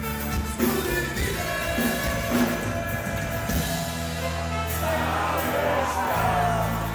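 Live rock band playing with a man singing, guitars, bass and drums together, with a held chord in the second half.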